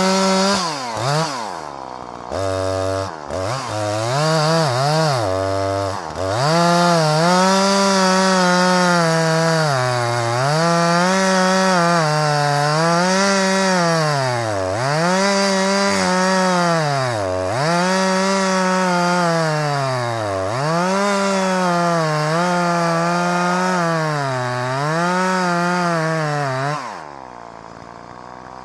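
Husqvarna 340e two-stroke chainsaw cutting through chestnut wood. After a few short revs, the engine runs at high speed for about twenty seconds, its pitch sagging and recovering every second or two as the chain bites under load. Near the end it drops back to idle.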